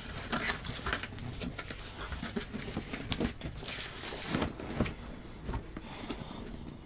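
Handling noises from opening a case of sealed trading-card boxes: irregular rustling, scraping and light knocks of cardboard and wrapping.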